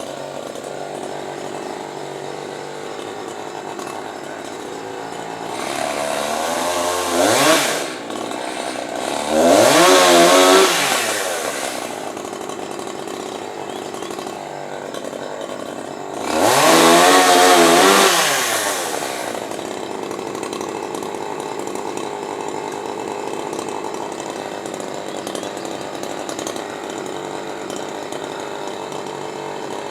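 Chainsaw idling, revved up three times, each time climbing in pitch and dropping back to idle.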